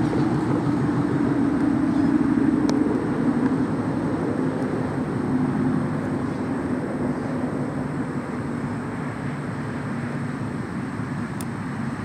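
A distant engine drone passing by: a steady rumble with a low hum that sinks slightly in pitch, loudest a couple of seconds in and slowly fading.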